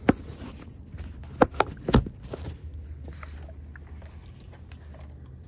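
Handling noise as a camera is moved and set in place: four sharp knocks in the first two seconds, over a low steady background hum.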